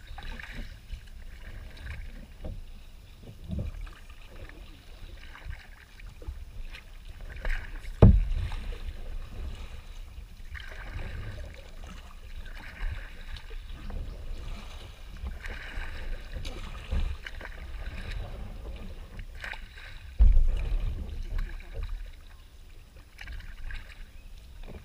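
Kayak paddling: the paddle blades splash and drip in the water every couple of seconds over low thumps. Two louder thuds come about eight and twenty seconds in.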